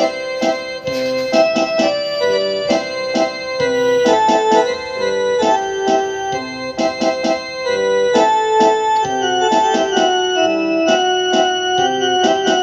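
Keyboard music, an electric piano or synthesiser playing a quick run of notes over held chords.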